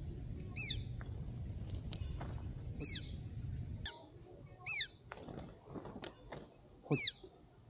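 Collared falconet calling: four short, shrill, downward-sliding chirps spaced about two seconds apart. A low wind rumble on the microphone runs under the first half and stops at about four seconds.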